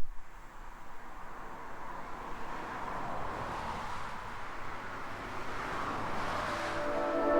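Road noise from a passing vehicle, an even rushing hiss that slowly swells as it draws closer. Music fades in near the end.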